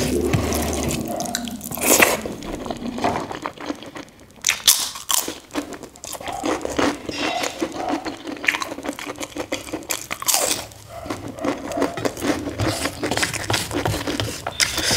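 Close-up eating sounds: fingers mixing rice on a steel plate, with crisp fried papad being broken and chewed in many irregular sharp crunches.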